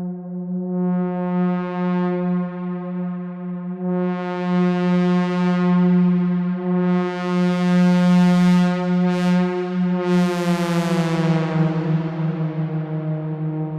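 Synthesizer imitation of a Leslie A-200 train horn: a sustained chord of several notes that swells brighter several times. About eleven seconds in, the upper notes bend down in pitch while the lowest note holds.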